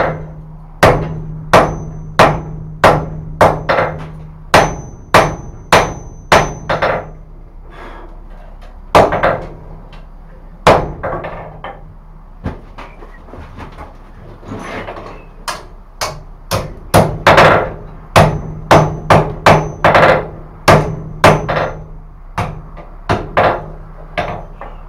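Hand hammer blows on a hot billet of forge-welded rasp, wagon-tire steel and wrought iron on the anvil, many with a short metallic ring. Steady strikes about one and a half a second give way to a few scattered blows in the middle, then the hammering picks up again at a quicker pace.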